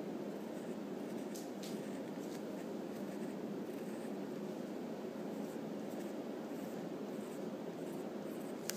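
Wooden pencil sketching on paper in light strokes over a steady hiss, with a sharp click near the end.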